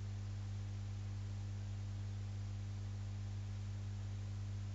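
Steady low electrical hum, one unchanging tone with fainter overtones above it.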